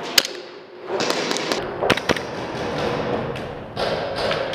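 Airsoft pistol shots in a large empty hall: one sharp crack just after the start and two more close together about two seconds in, over shuffling movement on a debris-covered floor.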